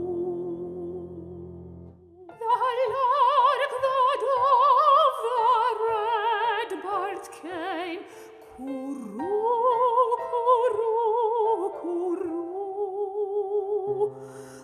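Solo classical soprano singing with a wide vibrato, over soft accompaniment. A held note fades over the first two seconds, then the voice comes back in with a long, sustained phrase.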